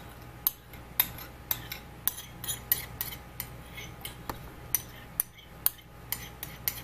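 A metal spoon scraping and clinking against glass as a glass bowl of soft fats is scraped out: a run of sharp, irregular clicks, one or two a second.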